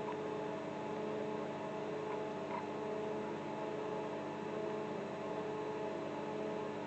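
TIG welding arc on an inverter welder, a steady electrical buzzing hum over a hiss.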